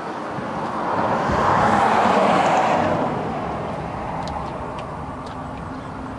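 A road vehicle passing by: tyre and engine noise swells to a peak about two seconds in, then fades away.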